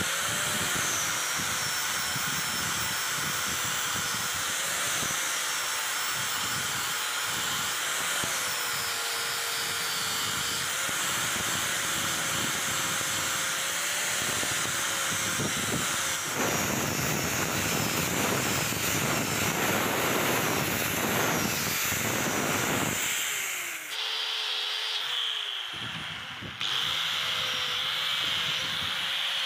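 Angle grinder running with a disc pressed against a steel pliers half held in a vise, its motor pitch wavering as the disc is loaded. The grinding gets harsher and louder for several seconds past the middle, then the motor winds down and starts up again near the end.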